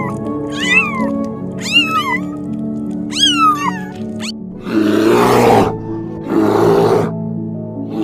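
Kittens mewing: three short high mews, each rising and falling, in the first half, over background music. Then two longer harsh, rough growls, the loudest sounds, about five and six and a half seconds in.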